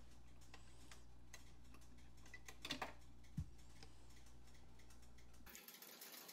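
Quiet room tone: a low steady hum with faint scattered ticks, and a couple of slightly louder clicks around the middle. The hum cuts off near the end.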